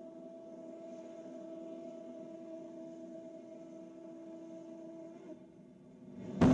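A steady hum of test-stand equipment with a few held tones, which fades out about five seconds in. Right at the end, a sudden loud rush of noise starts as the F-1 engine's gas generator begins its test firing.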